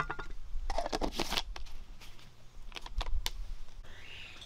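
Handling noise: a quick run of clicks, taps and rustles, like things being handled or shifted by hand. A faint insect buzz comes in near the end.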